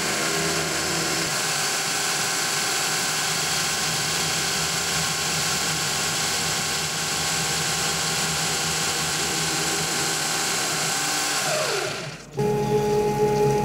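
CNC milling machine's end mill cutting plastic composite decking: steady machining noise with several fixed whining tones from the spindle. About twelve seconds in the pitch falls and the machine sound cuts off, and steady held music tones take over.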